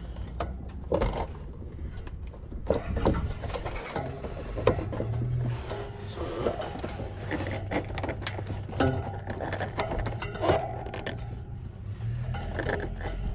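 Scattered metal clicks, knocks and scrapes of a hand tool and parts being worked as a replacement condenser fan motor is fastened into its fan grille, over a steady low hum.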